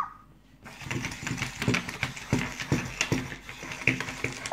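Little Live Pets toy puppy walking across a wooden table: its small motor runs and its plastic feet tap about three times a second. A short electronic yip sounds at the very start.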